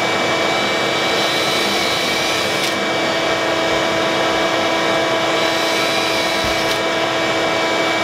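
Vacuum cleaner running steadily, with a steady whine in it, its hose held at the drill bit to suck up drywall dust while holes are drilled for a mounting plate.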